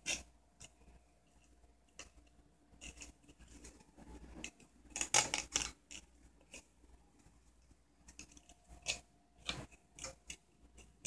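Hand tools cutting and prying apart a loudspeaker's cone and spider from its frame: scattered snips and clicks, with a louder run of them about five seconds in and a few more near the end.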